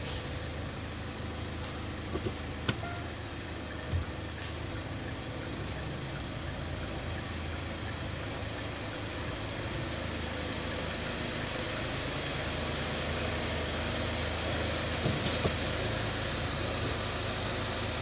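Hyundai Tucson's diesel engine idling steadily, with a few sharp clicks, the loudest about three seconds in.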